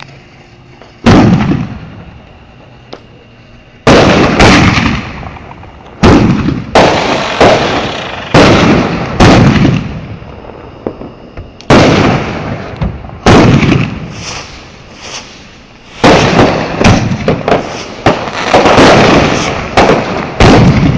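Consumer fireworks going off: a run of loud bangs, each fading out in a rumble, about a dozen in all, spaced a second or two apart at first and then coming quickly and overlapping for the last five seconds.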